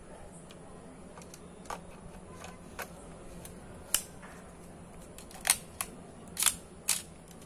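Nikon FG 35 mm SLR camera being worked by hand: a string of about eight sharp mechanical clicks, the loudest at about four, five and a half and six and a half seconds in, typical of the shutter being fired and its controls operated.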